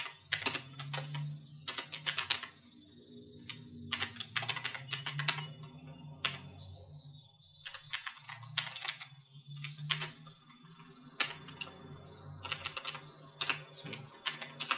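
Computer keyboard typing in quick bursts of keystrokes, with short pauses between the bursts.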